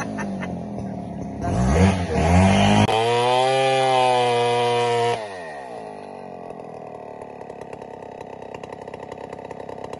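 Two-stroke chainsaw revving unevenly, then running at full throttle as it cuts into a log. About five seconds in it drops back to a quieter, steady idle.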